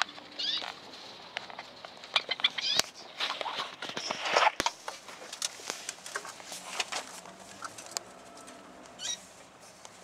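Cockatiels chirping in short gliding calls, with bursts of scratchy rustling and several sharp clicks in the middle.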